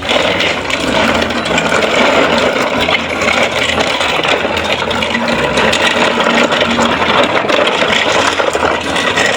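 Toy truck loaded with plastic toy cars being pulled over rough ground, its wheels rolling and the toys inside rattling without a break.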